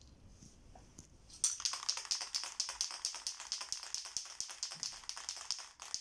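Aerosol spray paint can being shaken, its mixing ball rattling in a quick, even rhythm of several clicks a second, starting about a second and a half in.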